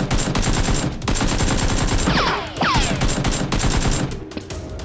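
Rapid automatic gunfire, many shots a second with no break, easing off near the end. About two seconds in, two falling whistling glides sound over the shots.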